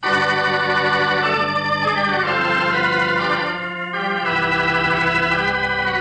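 Organ music bridge between scenes of a radio drama: sustained organ chords that come in suddenly, glide to a new pitch about two seconds in, dip briefly near four seconds, then swell again on a fresh chord.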